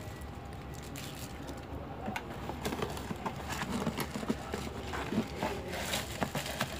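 Cardboard box and plastic wrap rustling and scraping as a hand reaches into the box and pulls out plastic-wrapped utensils. Irregular small crinkles and clicks begin about two seconds in.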